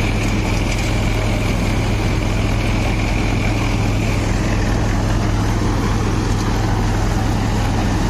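Sonalika Tiger DI 55 tractor's diesel engine running steadily at about 1100–1200 rpm under heavy load, driving a straw reaper. A thin, high, steady whine fades out about four seconds in.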